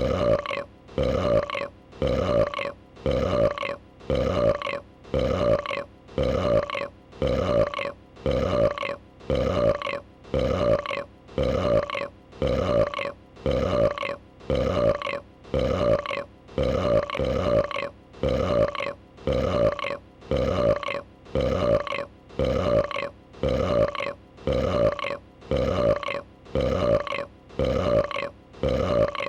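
A female dragon's burp, a creature sound effect looped over and over: the same short, pitched burp repeats evenly about once a second.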